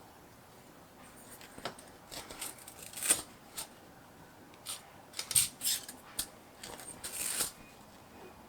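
An irregular run of short, crisp snips and rustles from small household items being handled, loudest about three seconds in and again around five and a half seconds.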